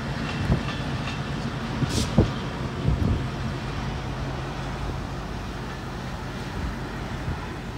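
Long Island Rail Road passenger train passing: the steady rumble of wheels on rails, with a few sharp clicks over rail joints in the first three seconds and a brief high hiss about two seconds in, fading as the train moves away.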